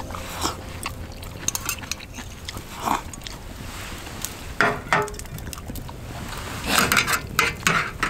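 Metal spoon clinking and scraping against a stainless steel cup in scattered knocks, the loudest cluster near the end, with a wood fire crackling.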